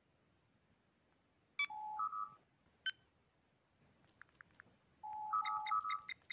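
Star Trek LCARS-style computer interface beeps from a themed phone app: a sharp click with a two-tone beep, a low tone stepping up to a higher one, about a second and a half in, another click, then the same two-tone beep again around five seconds. Near the end a quick, even run of short keypress chirps begins as letters are typed on the LCARS keyboard.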